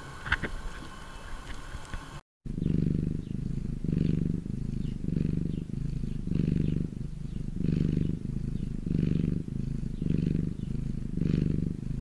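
Domestic cat purring: a low, steady rumble that swells and eases about every two-thirds of a second with its breathing. It follows a short stretch of underwater ambience with a sharp click, which cuts off about two seconds in.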